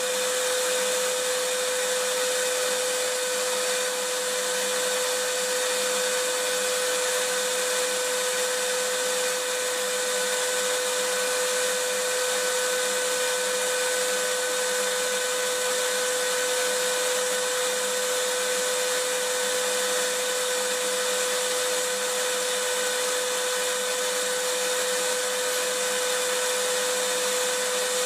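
Vacuum cleaner running steadily: a constant whooshing rush of air with a steady motor whine, no change in speed.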